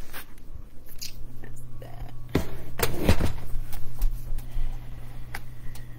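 Phone handling noise: irregular knocks and rubbing on the microphone, densest in the middle, over a steady low hum.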